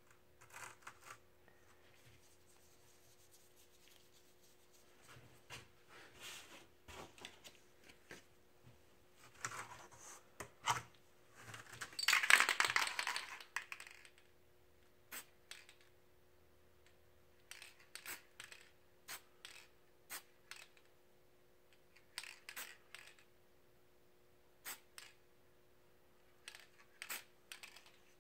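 Aerosol spray paint can spraying in one loud hiss about two seconds long near the middle, with a shorter, fainter spray a couple of seconds before it. Around these, scattered short crinkles, scrapes and taps of a sheet being pressed and rubbed on the painted board.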